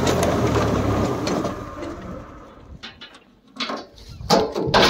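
Swaraj 843 XM diesel tractor running with its rotavator churning soil, loud at first and dying away after about a second and a half. Near the end come a few short, loud calls.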